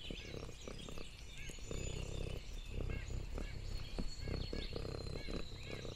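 Cat chewing and licking a piece of food held in a hand, close to the microphone: many short wet clicks and smacks.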